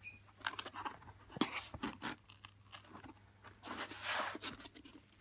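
Hands handling and picking at a cardboard mailing box: scattered scrapes, taps and rustles, with a longer rasping scrape about four seconds in.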